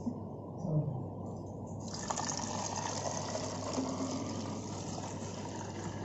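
Water filling a bottle: a steady splashing hiss that grows fuller and brighter about two seconds in.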